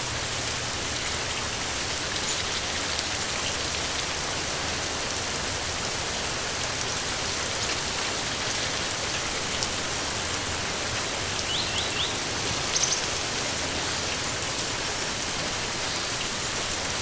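Steady rain falling, with a few brief high bird chirps about two-thirds of the way through.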